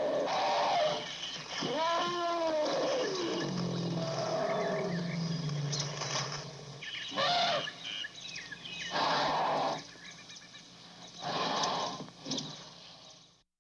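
Elephant calling: a pitched call that rises and falls about two seconds in, a low rumble after it, then several harsher blasts, with birds chirping faintly behind. The recording cuts off just before the end.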